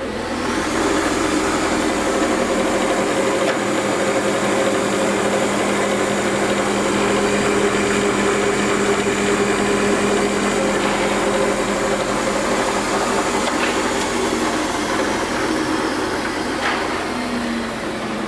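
Stehle saw-spindle moulder switched on: the motor and spindle spin up within the first second, then run steadily with no wood being cut, a constant machine hum with a high whine.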